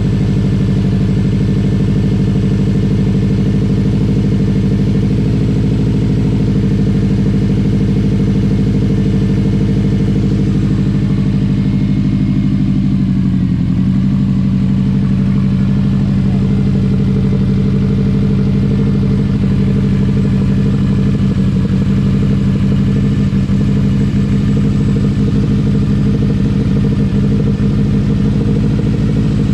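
Subaru WRX STI's turbocharged 2.5-litre flat-four (EJ257) idling steadily on its first run after the timing belt was re-set, its pitch dipping briefly about halfway through before settling. It runs smoothly, and the owner judges it to sound healthy.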